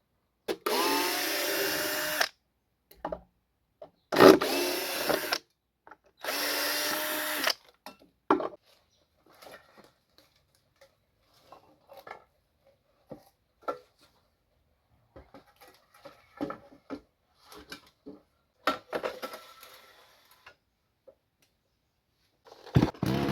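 Three short bursts of a small power tool's motor, each spinning up and running about a second before stopping. Scattered clicks and knocks follow. Near the end, a chainsaw starts and runs.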